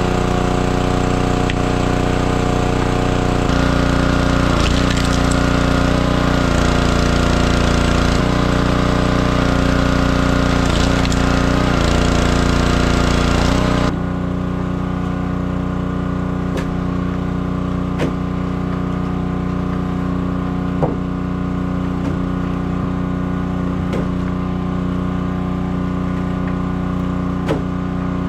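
Petrol-engine wood chipper running steadily while branches are chipped, its engine note dipping briefly several times. About halfway through the sound cuts to a slightly quieter, duller stretch of the same running machine, with occasional sharp knocks of wood in the chipper.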